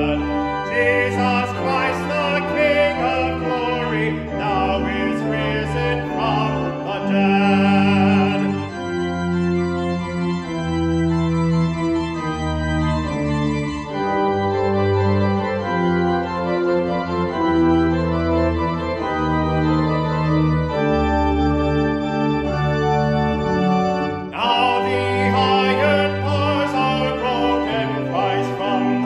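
A man sings a hymn to organ accompaniment. About eight seconds in the voice stops and the organ plays steady held chords alone for an interlude, then the singing comes back in near the end.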